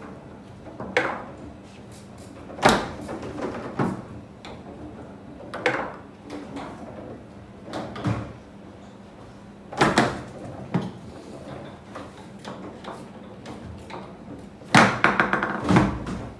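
Foosball table in play: sharp knocks of the ball being struck by the rod figures and hitting the table at irregular intervals, with a quick rattling run of louder knocks near the end.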